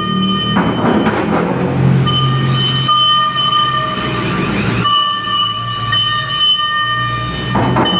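Fire truck air horn sounding in long, steady blasts, about three of them, with short noisy breaks between, over a low vehicle rumble.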